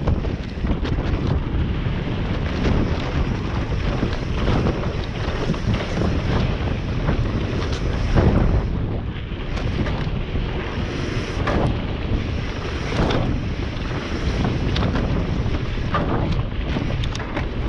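Electric enduro mountain bike riding downhill over rough trail: steady wind rushing over the on-board microphone, with frequent rattles and knocks from the bike jolting over the ground, the hardest about halfway through.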